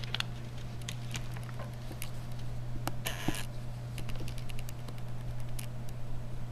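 Small clicks and taps from handling a screwdriver bit, its plastic packet and a small screwdriver on a tabletop, with a brief crinkle of the plastic packet about three seconds in.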